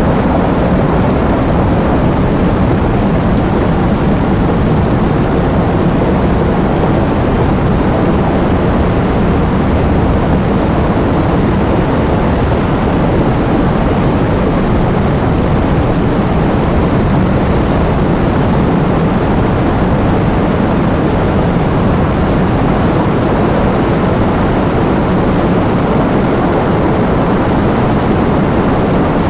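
Heavy rain falling in a steady, even rush of noise, strongest in the low range.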